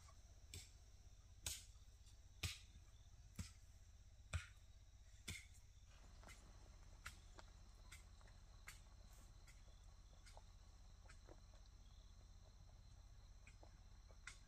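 A series of sharp knocks or taps, about one a second for the first five seconds, followed by fainter scattered ticks over a low steady hum.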